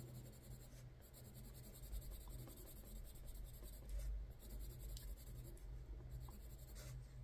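Coloured pencil rubbing softly on paper as an area is shaded in with another layer of blue, a faint, steady scratching with small ticks.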